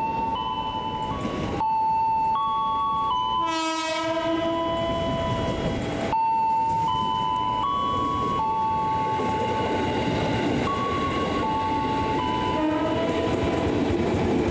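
Ex-JR East 205 series electric commuter train pulling alongside the platform, its motors giving a whine that steps up and down in pitch. About three and a half seconds in comes a short horn blast.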